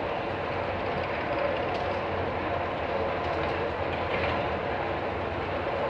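Steady mechanical rumble with a faint hum, unchanging, with no distinct knocks or events.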